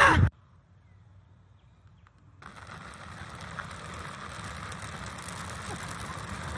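A loud voice from the previous clip cuts off just after the start, followed by a couple of seconds of near silence. Then steady outdoor background noise sets in and slowly grows louder.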